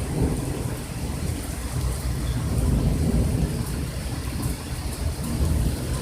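Heavy rain falling steadily, with a low, uneven rumble of thunder underneath.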